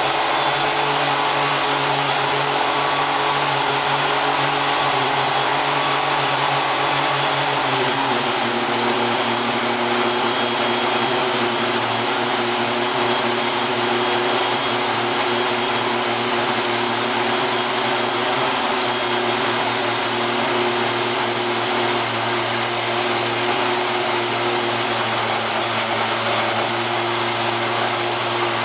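Power cutting machine running steadily under power, a continuous motor and cutting noise whose tones shift slightly in pitch about eight seconds in.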